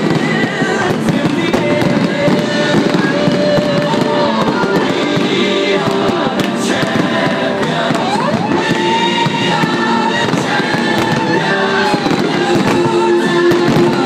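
Fireworks display: aerial shells bursting, with dense, rapid crackling from crackling stars. Music with held tones plays throughout.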